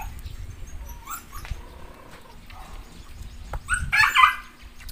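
Dog barking in short bursts: a faint bark about a second in and a louder run of barks near the end.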